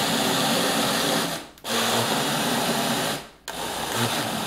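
Personal single-serve blender motor running at full speed, blending a smoothie in its cup. It stops briefly twice and starts again, pulsed in three runs.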